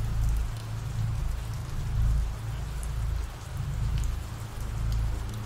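Steady rain falling, an even hiss, over a low rumble that swells and fades every couple of seconds.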